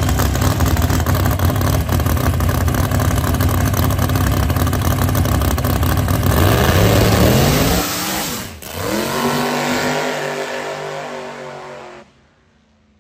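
Ford Mustang drag-radial race car's engine running loud and rough on the starting line, then launching with a rising rev about six seconds in. The revs drop sharply about two seconds later and climb again as the car pulls away, the sign of the tyres spinning at the hit. The sound cuts off suddenly about a second before the end.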